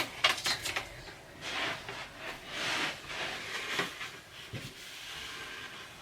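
Short irregular bursts of rustling and scraping, with a quick run of clicks in the first second: handling noise while a parakeet is being moved into its cage.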